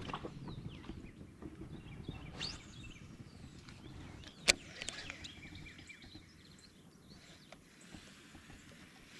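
Quiet creek ambience with faint low rumble, soft handling noises from the kayak and a few faint bird chirps, broken by one sharp click about four and a half seconds in.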